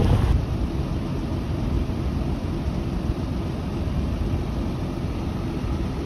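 Steady low rumble of vehicle engines, with a little wind on the microphone.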